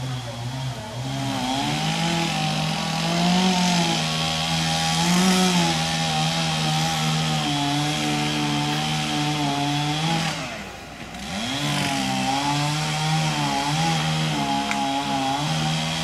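Chainsaw cutting through a storm-felled tree trunk, its engine pitch wavering as it bites under load. About ten seconds in it drops off for a moment, then is throttled up and cuts again.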